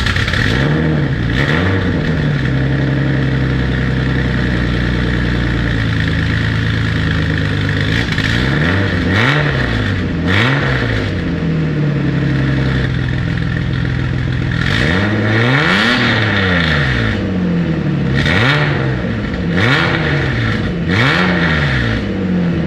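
BMW Z3 M Coupe's engine idling and being revved in short blips, about eight times, with a longer, higher rev about two-thirds of the way through.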